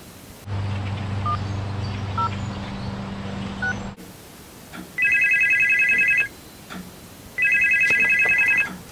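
Telephone ringing twice, each ring a fast trilling bell lasting just over a second. Before the rings, a steady low hum runs for about three seconds and stops abruptly.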